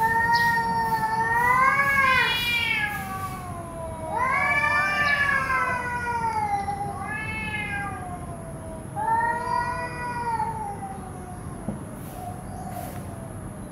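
Cat yowling in a standoff with another cat: several long, drawn-out, wavering calls with short pauses between them, the kind of warning yowl cats give before a fight.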